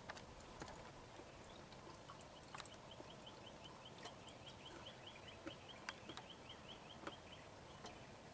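Near silence: faint outdoor ambience with a rapid run of short high chirps, about four a second, through the middle few seconds, and a few faint clicks.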